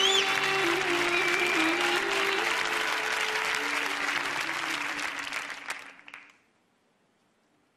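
Audience applause over music with held tones. It fades out about six seconds in, leaving near silence.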